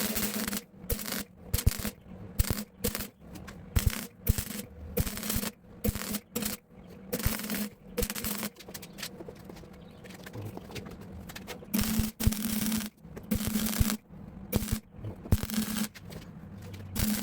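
Wire-feed (MIG) welder laying down weld in short stop-start bursts, each a crackling hiss lasting a fraction of a second to about a second, with a low hum under some of them: stitching on material to build up a worn edge.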